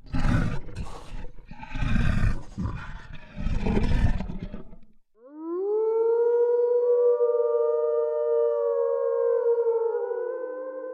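Wolf sound effects: three harsh growling bursts, then a long howl that rises in pitch and holds for about five seconds before falling away.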